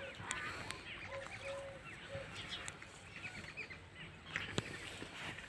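Birds calling in the background: a few short, even-pitched calls about a second in and again around two seconds, then quick high chirps, with scattered small clicks.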